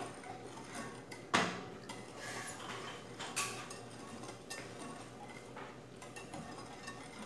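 Wire whisk beating a thin liquid mixture in a glass bowl, its wires ticking and clinking quickly against the glass. Two louder clinks come about a second and a half and three and a half seconds in.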